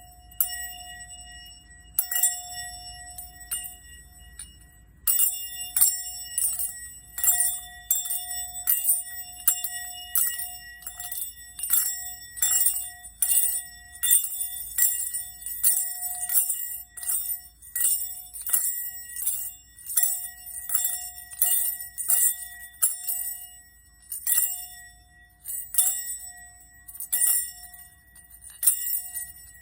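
A singing bowl ringing with steady overlapping tones. From about five seconds in, bright jingling strikes come a couple of times a second over it.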